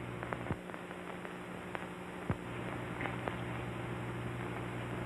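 Steady hum and hiss of an early sound film's soundtrack, with a few sharp clicks.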